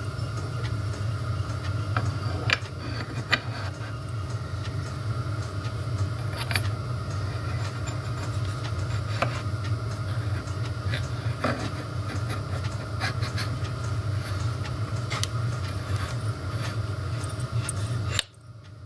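Scattered metallic clicks and clinks as steel gear blanks and collars are handled and slid along a steel shaft, over a steady low mechanical hum. The sound cuts off abruptly near the end.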